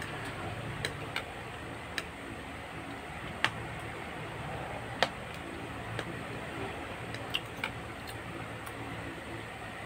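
Eating carbonara with a fork from a foam takeout container: irregular sharp clicks, about eight of them, the loudest a little past three seconds and at five seconds in, over a steady low hum.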